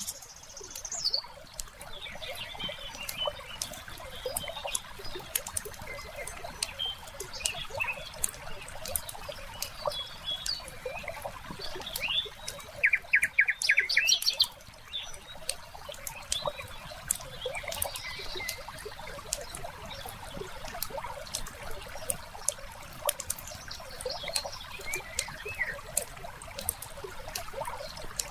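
Fireplace crackling with a steady run of small pops, under birdsong: scattered short chirps and, about halfway through, a loud fast trill.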